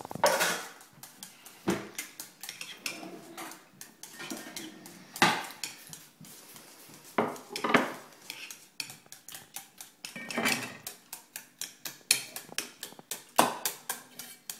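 Spatula beating eggs in a stainless steel mixing bowl: quick, irregular clicks and scrapes against the metal, with a few louder knocks as it strikes the bowl's side.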